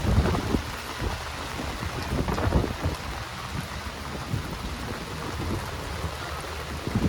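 Steady rain falling and pattering on surfaces. Low rumbling surges come at the start and again about two and a half seconds in.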